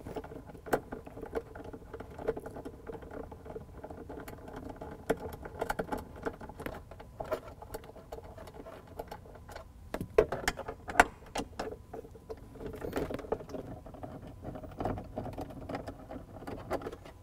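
Nut driver backing out the bolts that hold the armrest to a plastic centre console: scattered light clicks and scraping of the tool and bolts against plastic, with a few sharper clicks about two-thirds of the way through.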